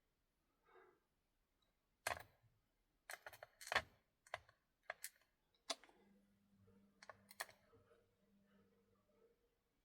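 Small, sharp metallic clicks and taps, about a dozen scattered irregularly, as steel tweezers drop brass key pins into the pin chambers of an American Lock 1100 padlock cylinder being reassembled.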